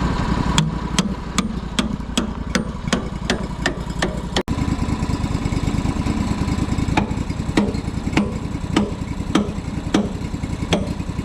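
Sawmill engine running steadily with a regular sharp clicking over it, about two and a half clicks a second at first, slowing to under two a second in the second half.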